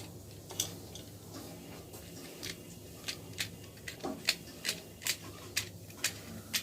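Light, irregular clicks and taps of small plastic and metal parts as nuts are fitted by hand onto a fan regulator's mounting in a plastic switch board, about a dozen in all, over a faint steady low hum.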